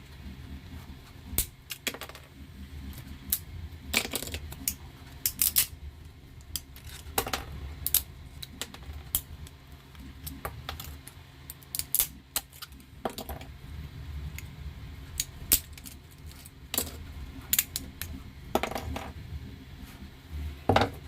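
Pens and pencils clicking and clattering against a 3D-printed plastic pencil holder as they are handled, in irregular sharp taps with a few louder clatters.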